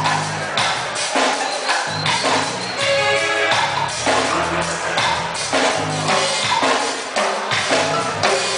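Live reggae band playing, with drum kit, bass and keyboards, with drum hits on a steady beat.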